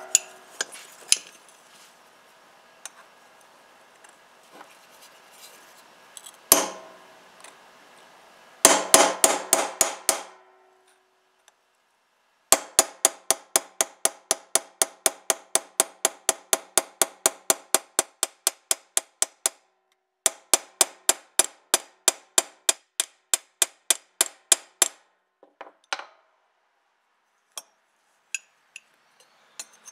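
Hammer striking metal, each blow ringing. A few scattered blows and a short flurry come first, then two long runs of quick, evenly spaced taps with a brief pause between them.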